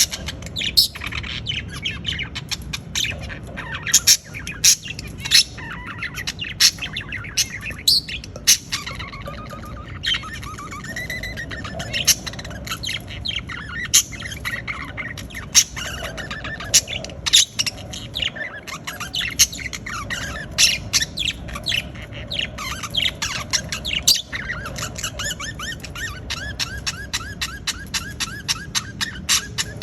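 Budgerigars chirping and squawking in short, sharp calls, with a fast run of repeated chirps near the end, over a steady low background hum.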